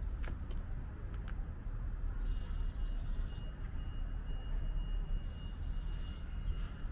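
Outdoor ambience: a steady low rumble with a few footsteps near the start and short high bird chirps every second or so.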